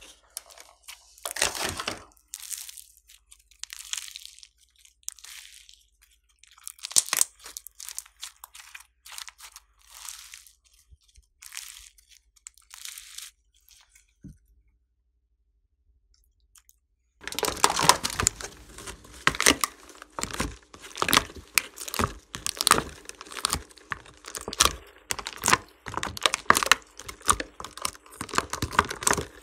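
Slime being squeezed and mixed by hand, with the crinkle of plastic piping bags and crackling clicks. Scattered squishes and crinkles come first, then a short silent pause, then a busy run of crackling and clicking.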